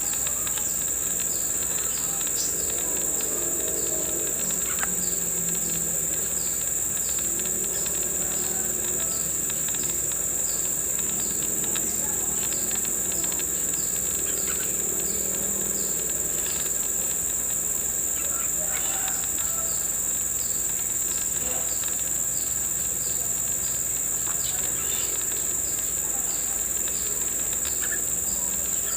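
A continuous, high-pitched chorus of insects droning without a break, with a regular short chirp repeating about twice a second.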